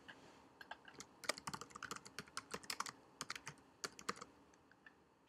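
Typing on a computer keyboard: a quick, uneven run of key clicks lasting about three seconds, then a couple of single clicks near the end.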